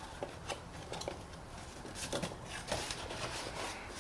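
Light clicks and rubbing from hands working the new cartridge oil filter element onto the clips of the oil filter housing cap.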